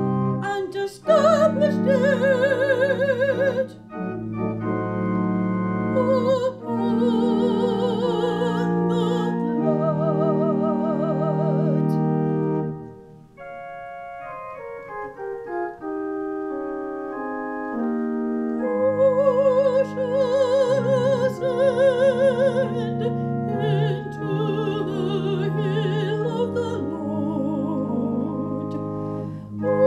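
A woman singing a sacred solo with wide vibrato over sustained organ chords. About 13 seconds in the voice stops and the organ plays alone in a quieter, stepwise falling line, and the voice comes back about 19 seconds in.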